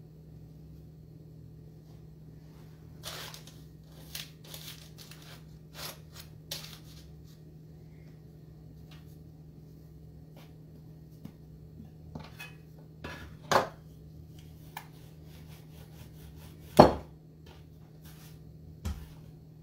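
Hands working dough on a floured wooden board, with scattered soft taps and knocks and two louder wooden knocks in the second half, the louder one near the end as a wooden rolling pin is picked up from the board. A steady low hum runs underneath.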